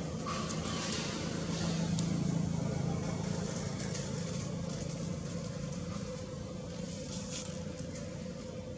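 Low hum of a motor vehicle engine, swelling about two seconds in and slowly fading.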